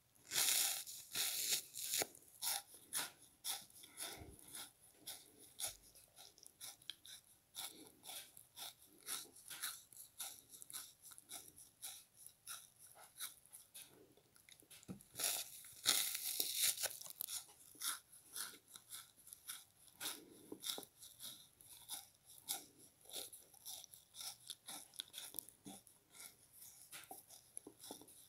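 A frozen pink bath sponge being bitten and chewed close to the microphone: a dense run of crisp, icy crunches, several a second. The loudest bites come about a second in and again around the middle.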